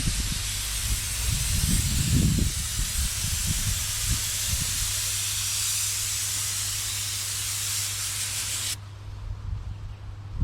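Paint spray gun hissing steadily as clear coat lacquer is sprayed onto a car panel, the hiss cutting off suddenly near the end. A steady low hum runs underneath.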